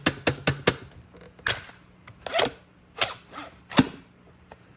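Dyson V10 Animal cordless vacuum's dust bin being emptied, knocked and tapped to shake out packed hair and dirt: a string of about a dozen sharp, irregular knocks, the loudest near the end.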